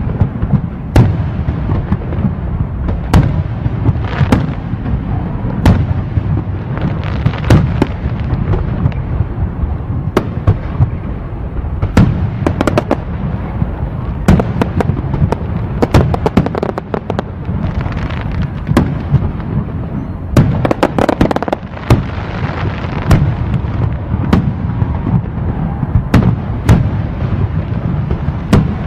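Fireworks display: a long run of sharp bangs, one every second or two and closer together in places, over a steady low rumble, with crackling at times between the bangs.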